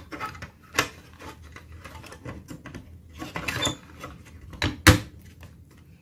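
Blower-fan cooler assembly of a Dell OptiPlex 3070 mini PC being pressed back into its seat over the CPU: scattered light clicks and scrapes of plastic against the metal chassis, the sharpest click about five seconds in as it seats.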